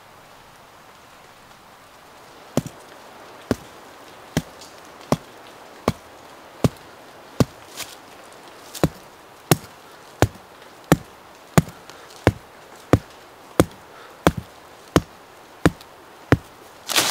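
Sharp, evenly spaced blows of a hand tool on wood, about twenty strikes at roughly one every 0.7 seconds, starting a couple of seconds in over faint forest background.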